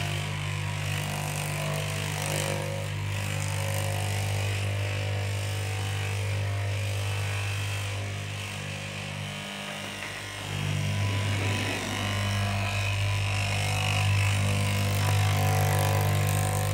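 Electric straight-knife cloth cutter running with a steady motor hum as its upright reciprocating blade cuts through a thick stack of layered fabric; the sound dips slightly around ten seconds in and then picks up again.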